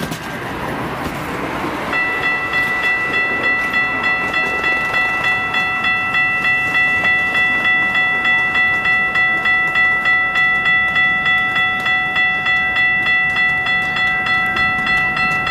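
Railroad grade-crossing bell starts ringing about two seconds in, an even, rhythmic ringing of steady high tones. Underneath is the rumble of an approaching commuter train's diesel locomotive.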